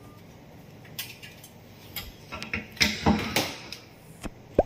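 Screwdriver and metal burner parts clicking and clinking against a stainless-steel gas range cooktop. The clinks come one at a time, bunch up about three seconds in, and there is a sharp click near the end.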